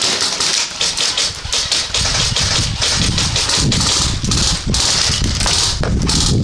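Quick footsteps and scuffs of a person moving over wet, muddy ground, a string of short irregular knocks. A low rumble on the microphone comes in about two seconds in.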